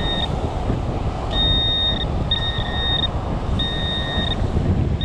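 Metal detector sounding its target tone: a steady high beep repeated about four times, each lasting under a second, as the coil passes back and forth over a buried metal target in the sand. Wind rumbles on the microphone underneath.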